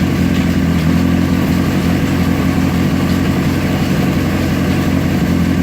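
2003 Honda CBR600RR's inline-four engine running steadily in fourth gear at an even pitch.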